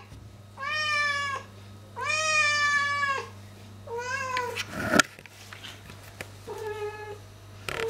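Silver tabby Scottish Fold cat meowing four times, the first two calls long and drawn out, asking to be petted. A single sharp knock about five seconds in.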